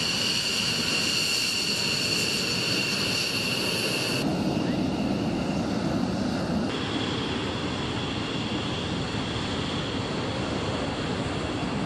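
F-15E Strike Eagle fighter jets taxiing, their twin jet engines running with a steady high-pitched whine over a rushing noise. The whine changes abruptly about four seconds in, giving way to a lower rumble, and a new whining tone sets in near seven seconds.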